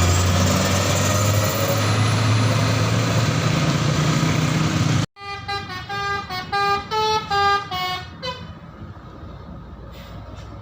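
A bus engine running loud close by for about five seconds. After a sudden cut about halfway through, a telolet basuri horn plays a quick tune of short stepped notes for about three seconds, then fades.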